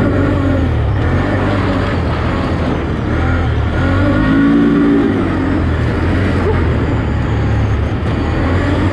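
Can-Am Outlander ATV engine running under way, its note rising and falling with the throttle, with a swell about four to five seconds in.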